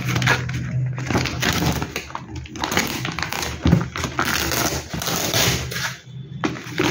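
Cardboard shipping box being handled and turned over: scraping and rustling of cardboard with short knocks, and one sharper knock about midway.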